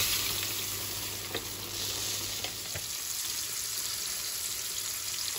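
Hot olive oil sizzling in a frying pan, easing off a little during the first second, with a few faint knocks as sliced onions are dropped in.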